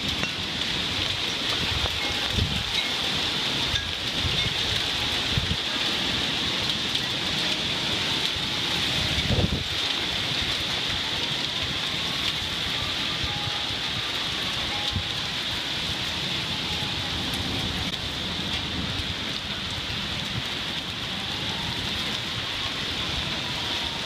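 Heavy rain pouring steadily in a severe thunderstorm, with low rumbling underneath from wind and thunder. A faint tone rises and falls in the background around the middle and again near the end.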